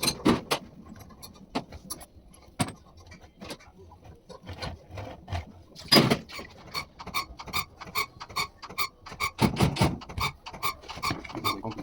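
Hand tools clicking and knocking on the metal parts of a diesel injection pump during disassembly, with a louder knock about halfway through. Light ringing metal clicks then follow at an even pace of about three a second.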